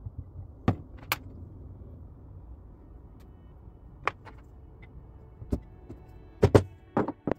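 Hardwood parts knocking and clicking together as glued leg pieces and loose tenons are handled and fitted by hand: a scattering of sharp single taps, with a quick cluster of the loudest knocks near the end.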